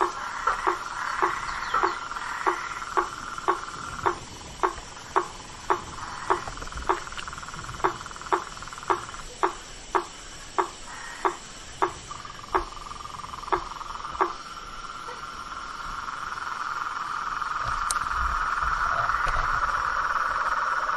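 A frog calling with short, evenly repeated notes, about two a second, spacing out and stopping about two-thirds of the way through. Under it a steady animal chorus grows louder toward the end.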